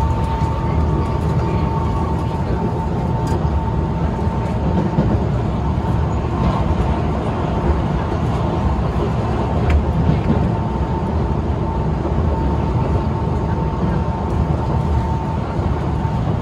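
Singapore MRT train running at speed, heard from inside the carriage: a steady low rumble of wheels on rail with a constant thin whine above it.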